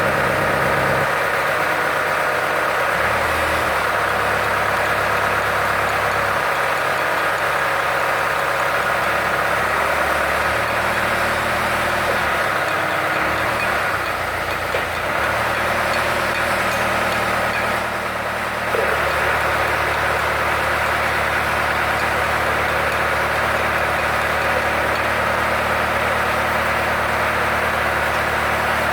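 Jacro 200 boring machine running continuously under test, a steady mechanical drone whose low hum shifts in pitch a few times, around 3, 10, 15 and 19 seconds in.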